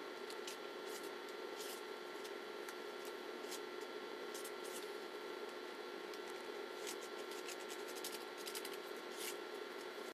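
Faint scrapes and light, irregular clicks of a utensil stirring thick lip gloss base in a disposable bowl, over a steady low hum and hiss.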